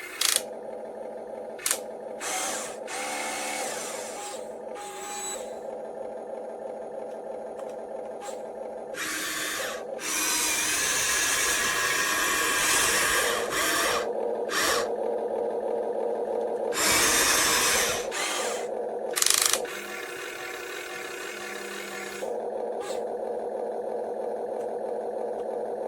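A toy RC dump truck's small electric motor and plastic gears whirring steadily, with several louder bursts of grinding noise lasting a few seconds each.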